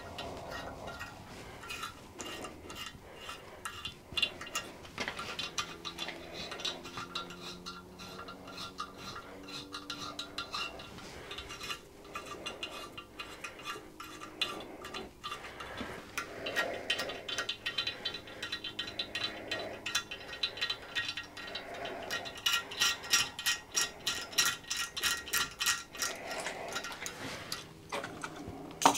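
Light metallic clicks and clinks from a steel helicoil insert and its winding tool being handled and fitted into a cast-iron block. The clicks come thicker and louder in the second half.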